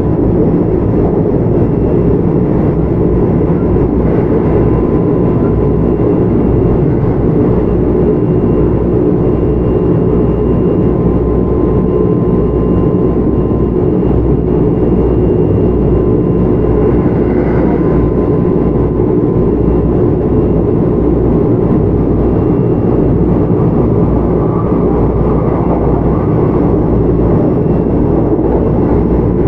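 Kintetsu 1031 series electric train running steadily at speed, heard from inside the car: a loud, even rumble of wheels on rail with a thin, steady whine above it.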